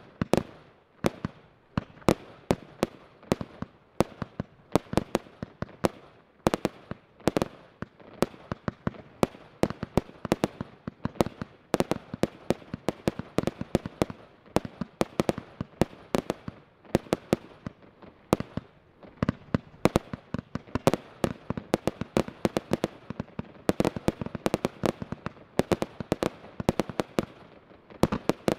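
Jorge JW4002 consumer fireworks battery firing a continuous run of shots: sharp pops and bangs of launches and bursting stars, several a second, with no pause.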